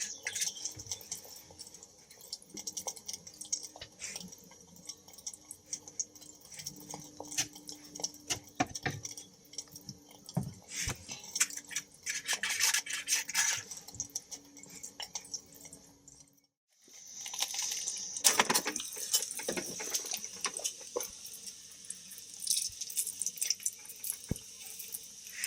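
Light clinks and taps of metal cooking gear and utensils being handled, over a steady high hiss. The sound drops out completely for a moment about two-thirds of the way through, then the clinking and hiss carry on.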